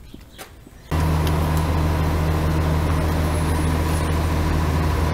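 A loud, steady, low mechanical drone starts abruptly about a second in and runs on evenly without change.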